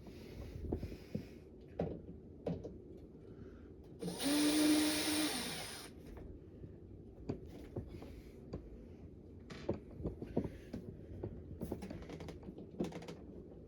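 Clicks and knocks of plastic and metal parts being handled while a window air conditioner is taken apart. About four seconds in there is a loud, brief whirring hiss with a steady hum, lasting under two seconds.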